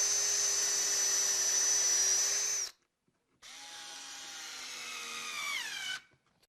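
Cordless drill motor running at a steady high whine for about two and a half seconds, then cutting off. After a short pause it runs again and winds down in pitch as it stops.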